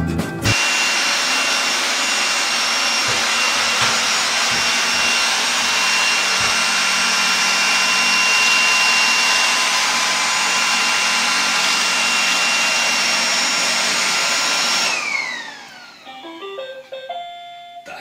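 iRobot Roomba 981 robot vacuum running, a steady whirring of its suction motor with a thin high whine on top. About fifteen seconds in the motor shuts off and winds down with a falling whine, followed by a few short pitched tones.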